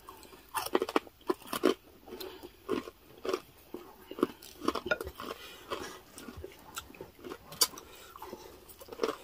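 Close-miked eating sounds: chewing and biting into crispy chicharon bagnet (deep-fried pork belly), with many irregular sharp crunches and crackles, several a second.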